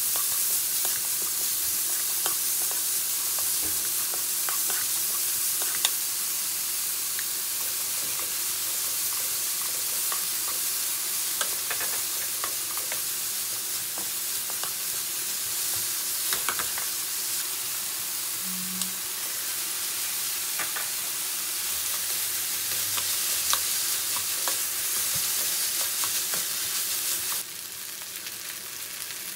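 Diced vegetables sizzling in oil in a non-stick wok while a spatula stirs and scrapes them, with scattered light taps of the spatula against the pan. About a second and a half before the end the sizzling drops abruptly to a quieter level.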